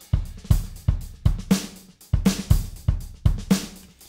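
Logic Pro X Drummer drum-kit track playing back uncompressed, the compressor switched off: a steady beat of kick, snare and cymbals in which the kick drum stands out loudest.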